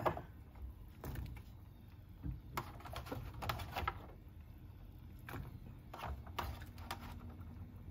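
Sliced bitter melon pieces dropped by hand into a stainless steel pot of broth and vegetables: irregular soft taps and knocks, over a low steady hum.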